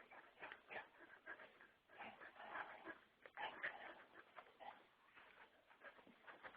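Two dogs, a Shiba Inu and a Lab–Spitz mix, tugging at a toy: faint, irregular short dog sounds in quick succession.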